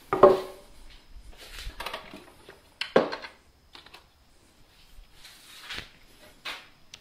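A 2x4 is set down on a wooden workbench with a knock. About three seconds in comes a louder knock, followed by a few lighter clatters as tools are handled in a wooden tool chest.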